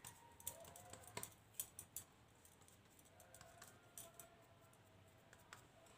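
Near silence with a few faint, scattered clicks and taps as bare hands press and shape mashed potato mixture into a tikki patty.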